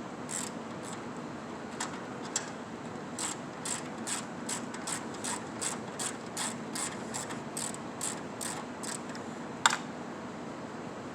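Hand ratchet clicking in quick strokes, about two to three a second, as it backs out a bolt holding the radiator. A single sharper clank comes near the end.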